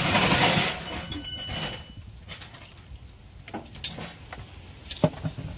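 Hard plastic scraping and creaking as a clipped-in plastic reservoir is forced loose, with a brief high ringing tone about a second in and a few light knocks near the end.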